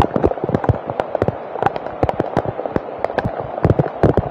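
Heavy tropical rain, large drops striking the camera and its microphone in a dense, irregular patter of loud clicks and taps.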